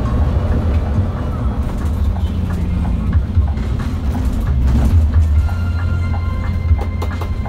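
Scania K360 IB coach on the move, heard from inside the front of the cabin as a steady low rumble of engine and road noise. Music with clear melodic notes comes in over it from about six seconds in.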